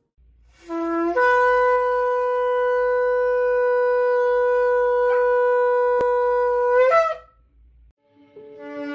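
Shofar blown in one long held blast. It opens on a short lower note, steps up to a steady tone for about six seconds, and ends with a brief upward flick. Another blast begins just before the end.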